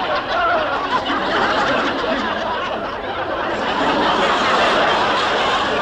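An audience of many people laughing together without a break, swelling about four seconds in and easing off near the end.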